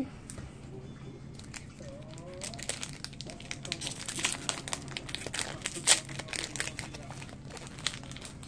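Foil booster-pack wrapper being torn open and crinkled in the hands: a run of quick crackles and snaps, densest in the second half, with one sharp snap about six seconds in.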